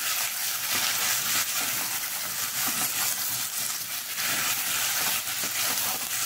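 Raw chicken pieces sizzling in hot oil with fried onions in a kadhai, while a wooden spatula scrapes and turns them against the pan in irregular strokes.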